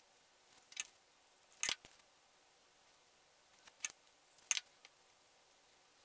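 Light clicks and taps from handling a plastic animatronic bird body shell wrapped in faux fur, about six in all, scattered and uneven.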